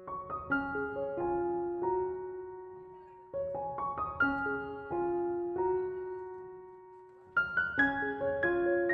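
Background piano music: short phrases of struck notes that ring and fade away, a new phrase beginning about every four seconds.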